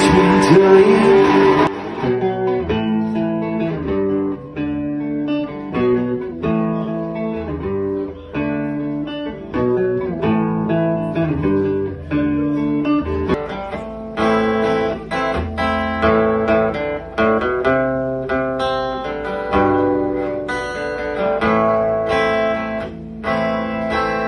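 Solo guitar played live with no singing: a couple of seconds of louder, fuller playing, then a repeating pattern of picked chord notes.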